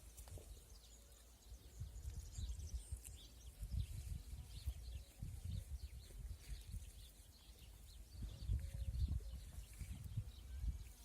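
Low rumbling of wind on the microphone that comes and goes in gusts, under many faint, short, high chirps of small birds.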